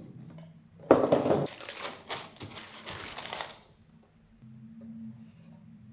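Sneaker packaging being handled: crinkling and rustling for about two and a half seconds, starting about a second in, then only a faint low hum.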